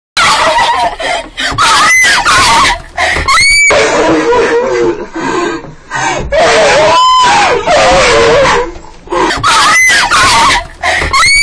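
Loud, distorted screaming: a shrill voice wailing up and down in pitch, starting suddenly out of silence and going on in long cries with short breaks between them.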